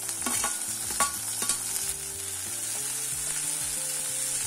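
Onions, curry leaves and freshly added chopped tomato sizzling in hot oil in a kadai, stirred with a spatula. There are a few sharp clinks of utensils in the first two seconds.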